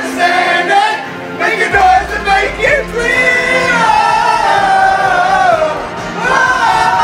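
A man singing through a corded microphone over backing music, holding long notes in the middle.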